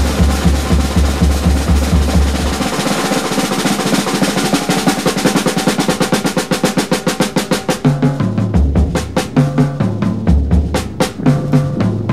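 Electronic background music: a drum build-up whose hits come faster and faster after the bass drops out, then a heavy bass and beat come back in about two-thirds of the way through.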